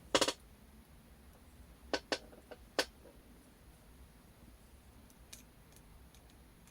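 Sharp clicks and taps of hand tools on the radio's circuit board during desoldering of the band-switch pins: one loud snap right at the start, a cluster of four lighter clicks about two seconds in, and a faint tick a little after five seconds.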